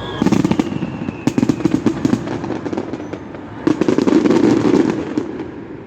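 Fireworks bursting in rapid volleys, a dense run of crackling reports in two waves, the second starting a little before four seconds in.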